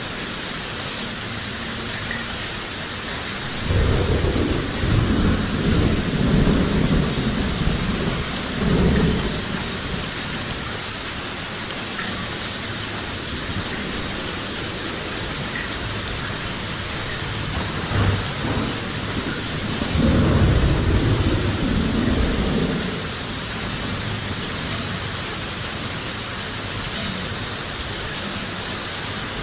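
Steady heavy rain hissing, with two low rolls of thunder: one rumbling for about six seconds starting a few seconds in, and a shorter one about twenty seconds in.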